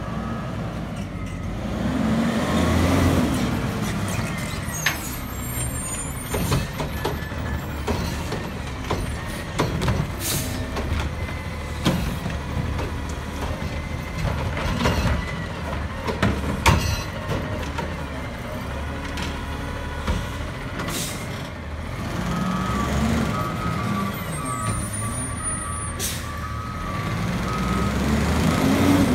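Front-loader garbage truck with a Curotto-Can automated cart arm working a pickup: its diesel engine revs up to drive the hydraulic arm as it lifts and empties a trash cart, with sharp knocks and hisses in between. A steady beeping alarm sounds near the end.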